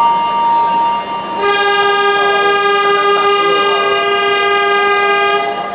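Train horn sounding a chord of several tones, held for about four seconds and then stopping, after a single held note of a short tune in the first second.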